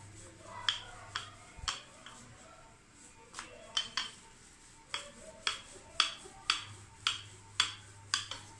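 Wooden rolling pin rolling out a stuffed keema paratha on a stone countertop, clacking against the counter in sharp clicks, a few at first and then about two a second.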